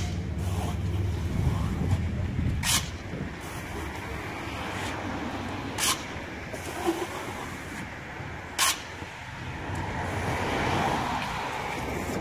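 Steel plastering trowel scraping stucco against the hawk and the wall: about four short, sharp scrapes a few seconds apart, with a longer rasping spread near the end. Under it runs a steady low rumble of vehicle engines and traffic.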